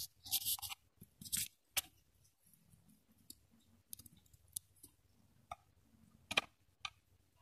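Small clicks and short scrapes of plastic DIP chips being picked out of a foam sheet and handled, busiest in the first two seconds, then a few scattered ticks and two sharper clicks near the end.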